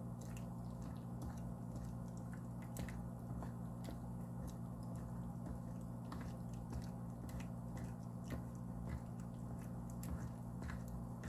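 A hand squishing and working wet flour, shortening and yeast water together into a first dough, giving soft squelches and many small crackles, over a steady low hum.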